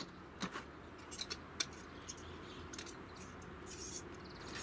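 Light clicks and taps of small metal camping gear being handled on a table: a brass gas lantern and gas cartridges being picked up and set down. There is a short scrape near the end.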